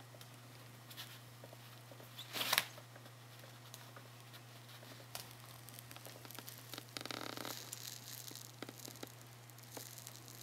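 Small rustles and scratches of a baby capybara's feet moving over a padded play mat and cloth quilt, with a louder rustle about two and a half seconds in and a longer one around seven seconds in, over a steady low hum.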